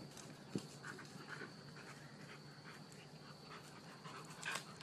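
Two dogs faintly heard as they run after a child, with a few short, soft dog noises and a click, over a low steady hum.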